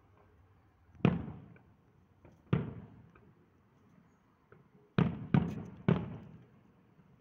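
Distant aerial firework shells bursting: five booms, one about a second in and another a second and a half later, then three in quick succession about five seconds in, each trailing off in a long rolling echo.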